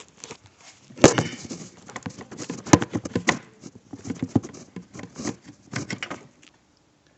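Irregular clicks, knocks and rustling of hands pulling a plug off a hot air rework soldering station and handling it, with a sharp click about a second in and another near the three-second mark; it stops suddenly near the end.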